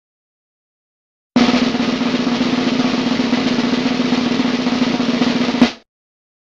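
Snare drum roll sound effect: a fast, even roll for about four seconds, starting about a second and a half in and ending in one louder hit that cuts off short.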